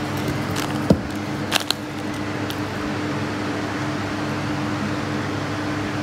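A steady low machine hum with several even tones. About a second in there is a soft knock, and a few brief clicks follow shortly after.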